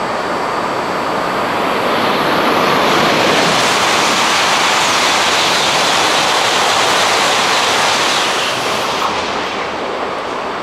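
Coupled E6 and E5 series Shinkansen passing through the station without stopping: a rushing roar of air and wheels that swells about two seconds in, stays loud for several seconds as the train goes by, then fades.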